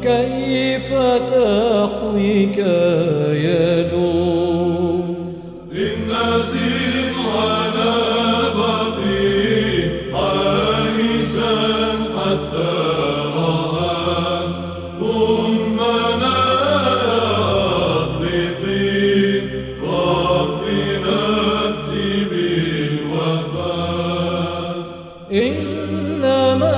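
Chanted Byzantine-style hymn: a single voice sings a slow, ornamented melody over a steady low drone, pausing briefly between phrases.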